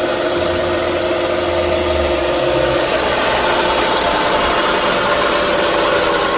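Audi A4 V6 engine idling with a really loud, steady whine on top, which the owner suspects comes from a noisy alternator.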